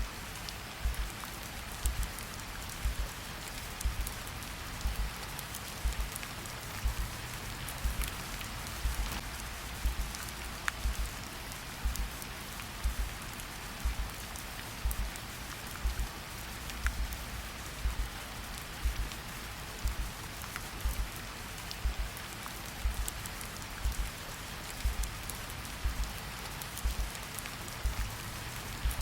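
Steady rain falling, mixed with a slow heartbeat: a low double thump, lub-dub, about once a second.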